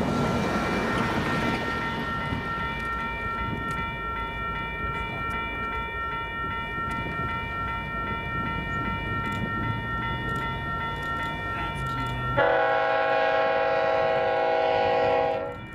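Railroad grade-crossing bell ringing steadily as the crossing gates come down, over wind noise. About twelve seconds in, the horn of the approaching Union Pacific GE Evolution-series locomotive sounds one long blast of about three seconds, fading out near the end.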